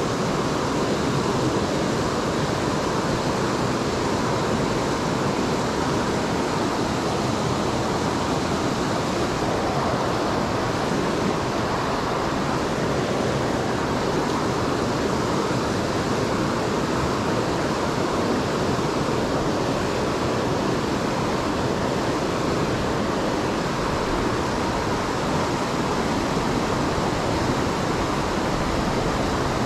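A rocky mountain stream running over boulders and a small cascade into a pool: a steady, unbroken rush of water.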